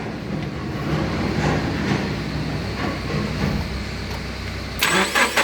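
Car engine cranking over on the electric starter in a start attempt, just after a new distributor with a built-in cam position sensor was fitted to cure a no-start with code P0340. A louder clatter of sharp knocks comes near the end.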